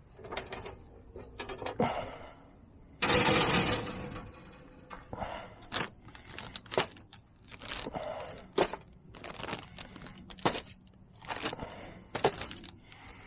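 Plastic zip-top bags crinkling and rustling as they are handled and laid on an aluminium sheet pan, with sharp clicks throughout. About three seconds in comes a louder rattling scrape, the wire rack being lifted off the metal pan.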